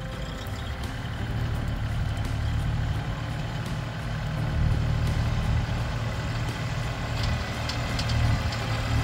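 Mahindra compact tractor's diesel engine running steadily as its front-loader bucket pushes a pile of dirt, growing louder as the tractor comes closer, with a few sharp clicks near the end.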